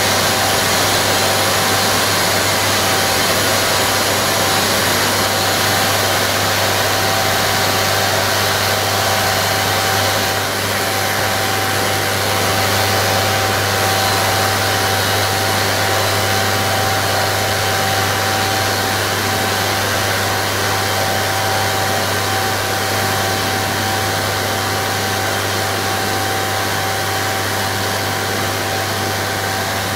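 Harsh noise music from small electronic gadgets, a cheap radio and a little synth, run through Boss distortion and octave pedals: a loud, unchanging wall of distorted static and hiss, with a held mid-pitched whine and a low hum beneath.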